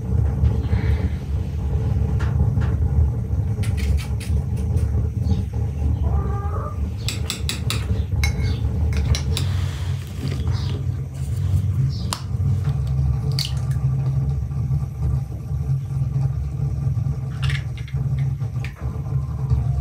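Dishes and cutlery clinking and tapping as a glass bowl, a spoon and eggs are handled on a table, with an egg cracked near the end. A steady low rumble runs underneath throughout.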